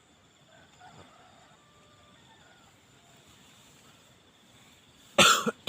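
Quiet dawn outdoor ambience: a few faint bird chirps over a steady high insect drone, then a short loud noise burst about five seconds in.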